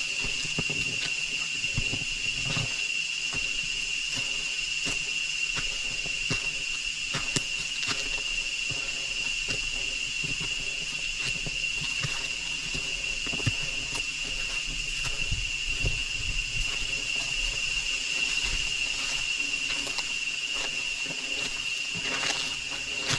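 Steady, high-pitched drone of rainforest insects, one unbroken tone, with scattered light clicks and rustles over it.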